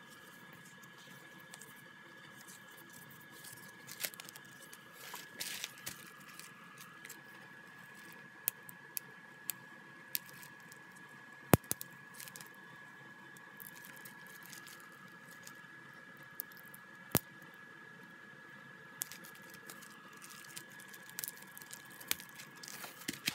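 Hands handling a boxed CD album and paper cards on bubble wrap: rustling and crinkling of plastic and paper, with scattered taps and a couple of sharp clicks. A faint steady high tone sits underneath.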